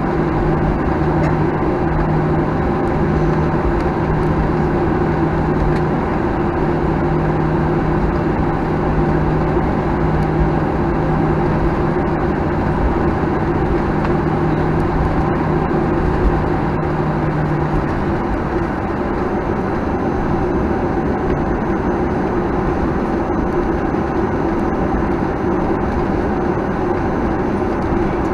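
Steady cabin noise inside a Boeing 737-900ER with its CFM56-7B engines running at low power on the ground, several even hums over a noisy rush. A low hum drops out about two-thirds of the way through.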